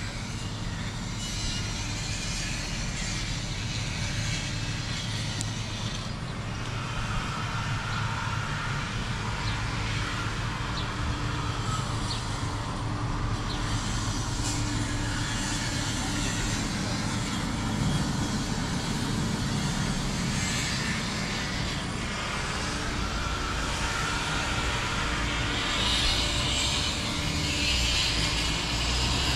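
Steady city street noise of running vehicle engines and traffic, growing a little louder near the end.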